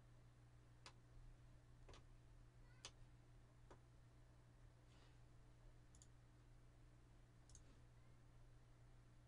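Near silence with faint computer mouse clicks, about seven spread irregularly, over a low steady hum.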